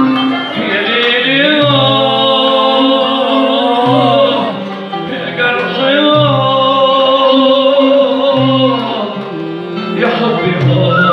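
A male singer sings two long, held, ornamented phrases into a microphone, over live accompaniment from violin and goblet drum (darbuka) in Arabic style.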